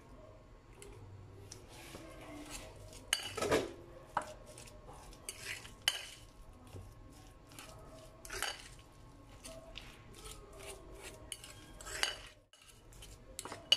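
A metal utensil scraping and clinking against a white ceramic bowl, stirring and mashing soft mashed potato in irregular strokes, with a few louder clinks every couple of seconds.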